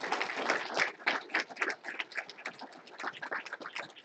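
Audience applauding: many hands clapping at once, thinning out into more scattered claps after a couple of seconds.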